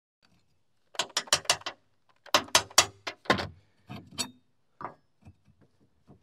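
Sharp metallic clicks and clinks in quick runs of four or five, from hand tools and loose clutch hardware being handled on a rotary cutter's slipper clutch. They start about a second in and thin out to faint ticks near the end.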